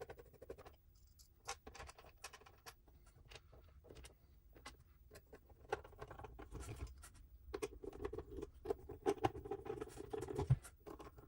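Irregular small clicks, taps and scratching of plastic and metal drive parts being handled and fitted together, growing busier and a little louder in the second half.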